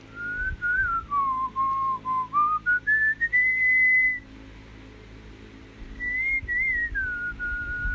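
A person whistling a slow tune: a phrase of held notes that dips low and then climbs to a long high note, a pause of about two seconds, then a shorter phrase that falls and holds.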